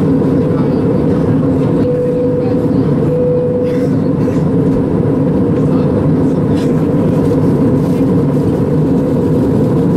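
Cabin noise inside an Airbus A320 in flight: the steady rumble of the engines and rushing air. A higher tone stands out above the rumble for a couple of seconds about two seconds in.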